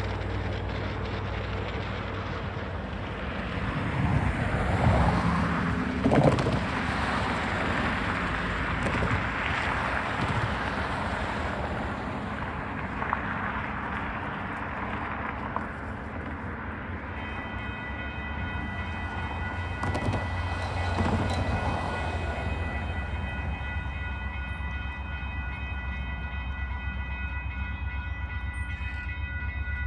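Union Pacific intermodal stack train passing on the mainline: diesel locomotive engines running over the steady rumble and clatter of rolling cars, with louder swells twice. About halfway through, a steady high ringing tone sets in and holds.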